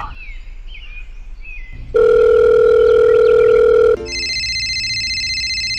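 Cartoon sound effects: faint warbling chirps, then a loud steady electronic beep for about two seconds, cut off abruptly by a high, rapidly trilling telephone-style ring that lasts about two seconds.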